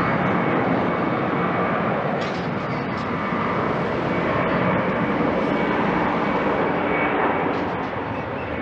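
Boeing 767-300ER airliner's twin jet engines running as it rolls along the runway: a steady, loud noise with a thin steady whine above it.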